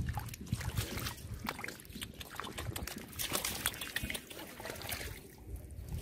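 Hands groping and splashing in shallow muddy water, with irregular wet squelches and small splashes of mud and water.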